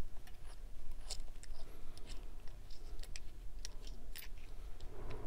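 Light clicks and scrapes of the relief valve stem and rubber diaphragm assembly of a Watts 909 backflow preventer being worked apart by hand, with a dozen or so sharp ticks scattered through, over a low steady hum.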